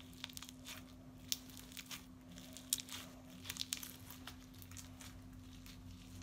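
Homemade slime with toothpaste mixed in being kneaded and pulled apart by hand, giving faint, irregular sticky clicks and snaps.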